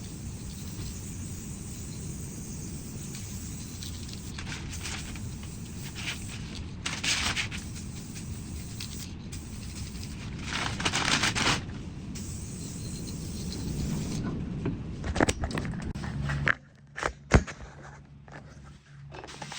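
Sandpaper scraping in strokes over primer on a composite foil board's nose, with a steady low rumble behind. Near the end the rumble drops out and a couple of sharp knocks are heard.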